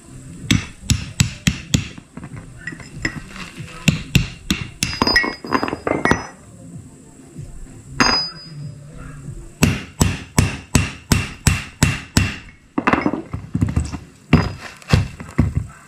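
Hammer blows on metal, driving a new bearing into the front axle's differential housing: several runs of sharp strikes with short pauses between, including a steady run of about three blows a second in the second half.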